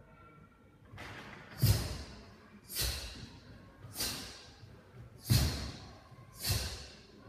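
A taekwon-do student performing pattern moves barefoot on a wooden floor: five sharp snaps of the uniform, each with a low thud, about one every second and a quarter, one with each strike or kick.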